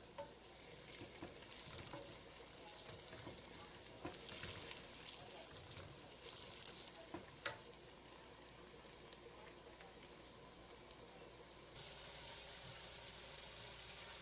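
Onions frying in hot oil in a degchi, a steady sizzle with a few sharp clicks of the stirring spoon against the pot.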